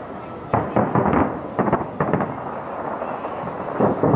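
Fireworks shells bursting in the distance: a run of sudden booms from about half a second to two seconds in, then another cluster near the end, with a rumble carrying on between the bangs.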